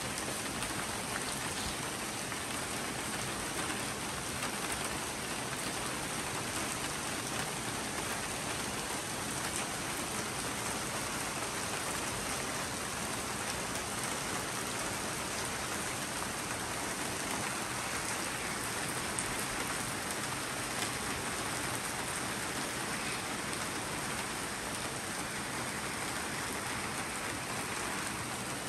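Steady thunderstorm rain falling on surfaces, an even hiss that holds at the same level throughout.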